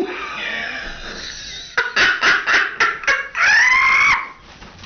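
A person's vocal reaction to the burn of wasabi: breathy hissing, then a quick run of short sharp vocal sounds, then a long high-pitched cry about three and a half seconds in.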